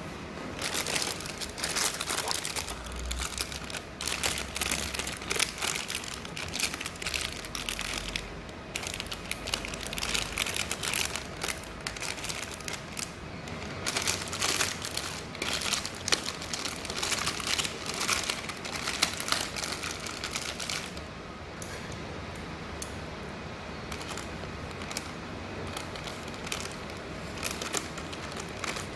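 Handling noise: a dense run of small clicks, taps and crinkling, busier in stretches and quieter over the last third.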